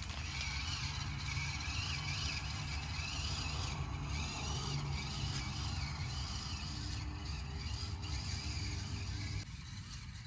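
Axial SCX24 mini RC crawler's small electric motor and gear drivetrain whirring as it drives, the whine wavering up and down in pitch with the throttle. The sound drops off abruptly about nine seconds in.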